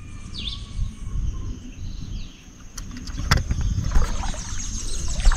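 Outdoor riverside ambience, mostly a low rumble of wind buffeting the phone's microphone, under a steady high-pitched hum. A short bird chirp comes about half a second in, and a few sharp handling clicks come around three seconds in.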